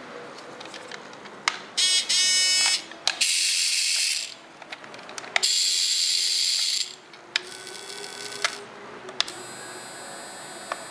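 Small electric motors of a mini RC toy submarine whirring in short bursts of about a second each as the remote's controls are pressed, some with a pitched buzz and some with a hissy churn, separated by sharp clicks.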